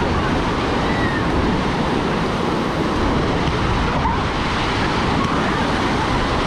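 Ocean surf washing steadily onto the beach, a constant wash of noise.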